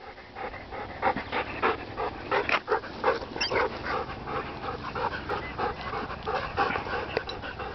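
A dog panting fast and steadily close to the microphone, about three breaths a second.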